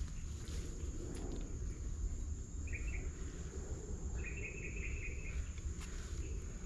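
Insects droning in a steady high tone, joined by two short bursts of rapid chirping about three and four and a half seconds in, over a low steady rumble.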